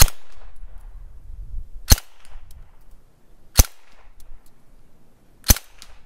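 Four single shots from a suppressed Sten Mk4(S) submachine gun on semi-auto, firing standard 115-grain 9mm Parabellum slowed to subsonic by its short ported barrel, spaced about two seconds apart. Each shot is a short, sharp crack, quite quiet for a gun.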